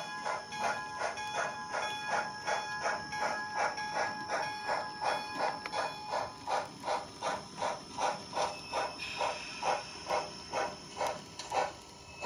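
Model steam locomotive's sound unit chuffing steadily, a little over two beats a second, over a steady hiss and a faint whine. This is the H0n3 C&S 2-6-0 Mogul working a stock train. The chuffs fade out near the end.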